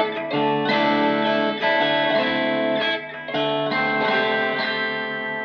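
Fender Telecaster on its bridge pickup played through a Fender Blues Junior IV tube amp, with the volume pushed high, the master low and the spring reverb at maximum. Chords are strummed several times, and the last one rings out and slowly fades near the end.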